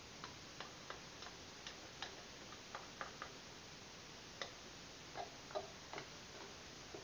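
Faint, irregular clicks and taps of a spatula scraping creamed corn out of an opened tin can, metal and spatula knocking against each other.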